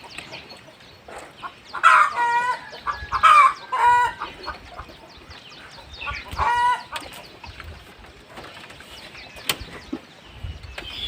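Chickens calling: four loud, short clucking calls in the first seven seconds, then quieter, with a single sharp click near the end.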